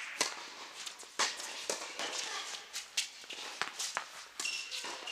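Tennis balls being struck and bouncing during a doubles rally, heard as sharp knocks at irregular intervals. A short high squeak comes near the end.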